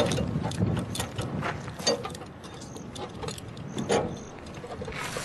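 Irregular metallic clinks and knocks of hand tools at work on a car during a roadside repair, a handful of sharp clicks scattered over a few seconds.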